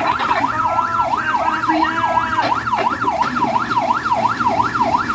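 Electronic yelp siren, its pitch sweeping rapidly up and down about four times a second without a break. Some steady tones are layered over it in the first half.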